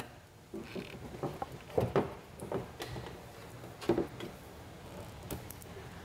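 Scattered soft rustles and light taps of hands wrapping electrical tape around turn-signal wiring inside a scooter's rear turn-signal opening, with a few sharper clicks about two and four seconds in.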